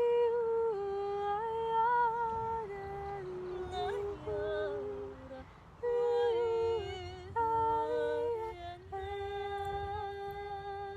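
Wordless vocal improvisation: a voice humming long held notes that step from one pitch to another, with short breaks between phrases, over a faint low rumble.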